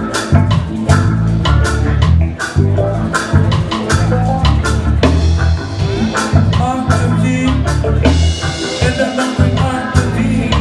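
Live roots reggae band playing, with a heavy bass line, drum kit and electric guitar.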